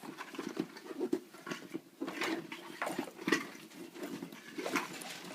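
Irregular rustling and crinkling of packaging as a gift bag is unwrapped by hand.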